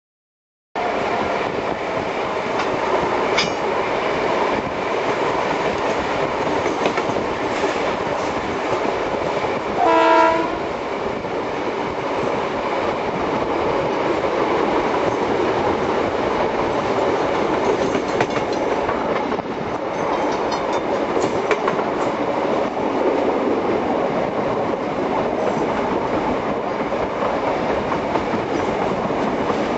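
A train running, heard from on board: a steady rumble with wheels clicking over the rail joints. About ten seconds in, the locomotive gives one short blast of its whistle or horn.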